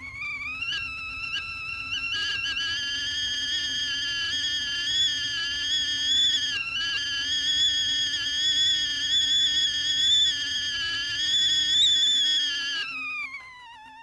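Whistling tea kettle at the boil: the whistle rises in pitch at the start, holds loud and slightly wavering, then drops in pitch and fades near the end, over a faint low rumble.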